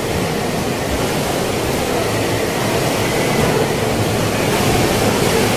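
Typhoon wind, a loud steady rushing noise that grows a little louder toward the end.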